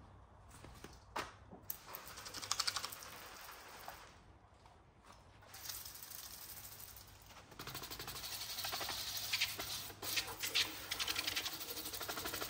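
Electric pressure washer spraying, its pump pulsing rapidly with a hissing jet. It runs in short bursts at first and then steadily from just past halfway.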